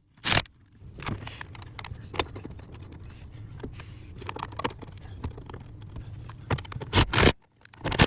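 Hands and tools working on a pickup's steering column trim: scattered small clicks and scrapes, a sharp knock just after the start and a louder cluster of clacks and scrapes about seven seconds in, over a low steady rumble.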